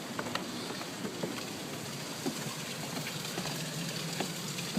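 Steady rush of running water with scattered faint ticks and drips.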